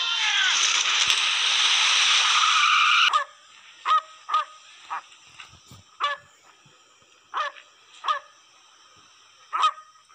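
A loud, dense rush of film sound cuts off suddenly about three seconds in. Then a dog barks in short, single barks, about seven of them, spaced irregularly.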